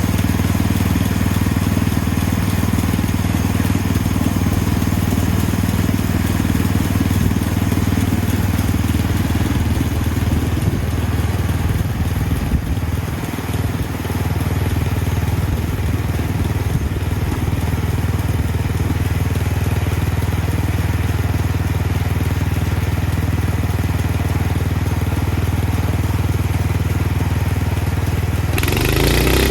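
Engine-driven portable band sawmill running steadily under load as its blade cuts through a log. Near the end a brighter, hissing noise joins in.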